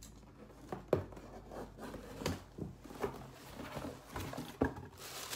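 A cardboard shipping box being picked up and handled: a few knocks and thumps with rubbing of cardboard in between, the sharpest knocks about a second in and just before the end.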